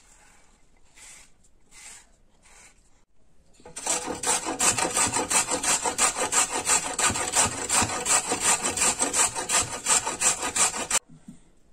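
A carrot being grated on a stainless steel box grater: a run of quick, even rasping strokes that starts a few seconds in, after some faint rustles, and stops abruptly near the end.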